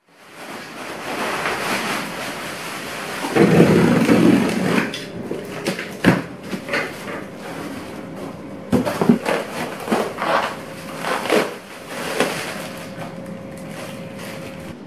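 Handling noises: a burst of rustling, then a string of separate knocks and clicks as objects are moved about, over a faint steady hum.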